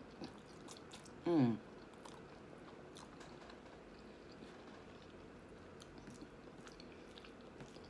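A person chewing a mouthful of baked spaghetti close to the microphone, with small wet mouth clicks. About a second and a half in comes a short hum, falling in pitch.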